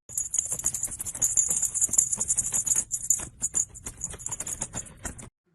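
Fast, irregular shaker-like rattling, high and hissy, that cuts off abruptly near the end.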